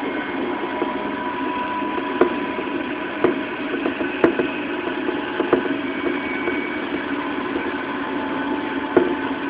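Running sound of a JR 211 series resistance-controlled electric train, heard from inside the car while it travels at a steady speed. There is a constant rumble with a level hum, and the wheels click sharply over rail joints every second or so.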